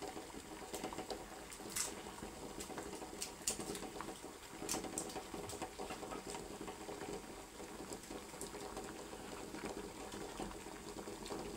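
Dry red onion skin crackling and rustling as it is peeled off by hand and scraped with a knife, in short scattered clicks, over the faint steady bubbling of a pot of noodles boiling.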